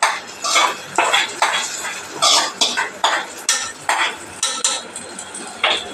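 Steel spoon scraping and knocking against a small metal tempering pan as fried tempering is emptied into a pot of curry: repeated short metallic scrapes, about two a second.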